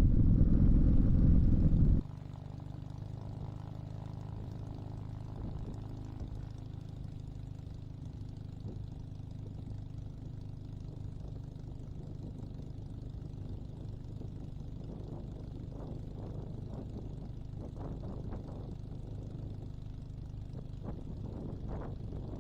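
Small light-aircraft engine running loud for about two seconds, then cutting abruptly to a quieter, steady drone for the rest of the time.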